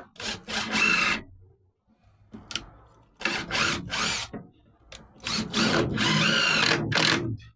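Cordless drill driving screws to fix a van shelving rack: three runs of the motor, the last the longest at about two seconds.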